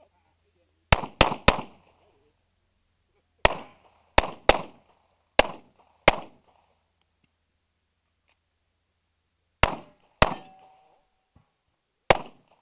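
Pistol shots from a Custom Defensive Pistol (CDP) division handgun in .45 ACP, fired in strings during an IDPA course of fire, each a sharp crack with a short echo. Three quick shots come about a second in, five more spaced out from about three and a half to six seconds, two near ten seconds, and one more near the end.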